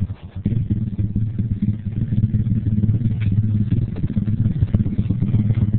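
Small pit bike engine running as it is ridden, with a steady low throb. There is a brief drop in level just after the start, then the engine picks up again.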